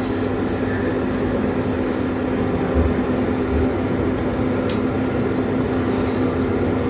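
A steady droning hum over an even rushing noise, with a few faint scrapes of a wooden spatula stirring hot milk in a metal kadai.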